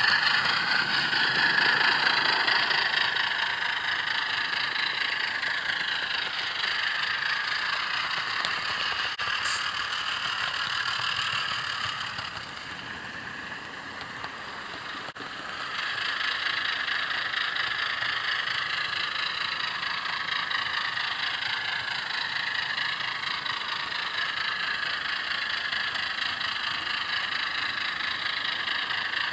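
Sampled Alco six-cylinder diesel engine sound played through the small speaker of an ESU LokSound 5 decoder in a model Alco HH660 locomotive, running under load-dependent Dynamic Sound Control. It drops quieter for a few seconds about halfway through, then comes back up to its earlier level.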